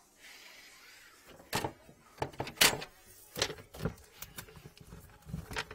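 Handling noise under a sink: a string of irregular clicks, knocks and short scrapes as a drain inspection camera's cable is pulled and plastic fittings are moved, the loudest knock a little over halfway through.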